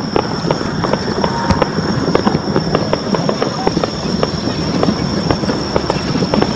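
Fireworks display: a dense, irregular crackle of many small pops and bangs, over a steady high-pitched tone.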